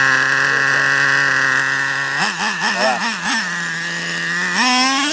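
Brand-new nitro glow engine of a Traxxas Revo RC monster truck idling steadily, then given a quick series of throttle blips about two seconds in, settling, and revving up near the end.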